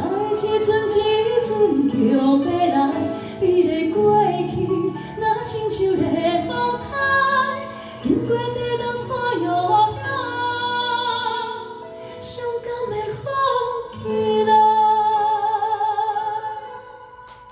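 Two women singing live into handheld microphones, one leading and the second joining in near the end. The sound drops away briefly at the very end.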